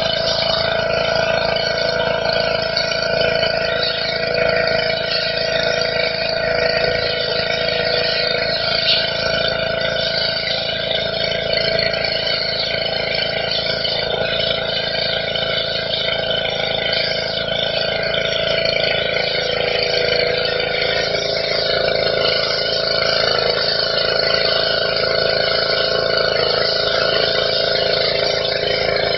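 Petrol-engined high-pressure washer running steadily, its jet hissing as it sprays onto stone patio paving.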